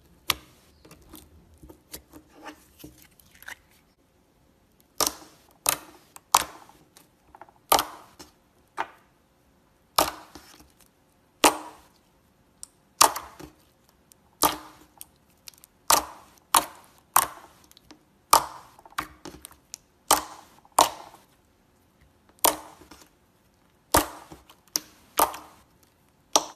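Slime being squeezed and poked with fingers, giving sharp popping clicks as air pockets burst, roughly one a second. The first few seconds hold softer crackling.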